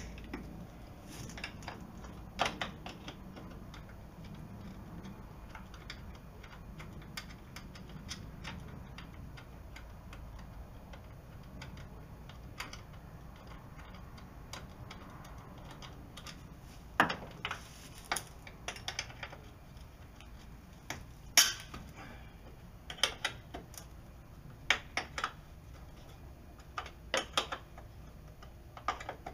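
Scattered clicks and metal clinks of a wrench working the bolts at the top of a Jeep Cherokee XJ's rear liftgate as it is being removed, with a few sharper clanks, mostly in the second half, over a low steady hum.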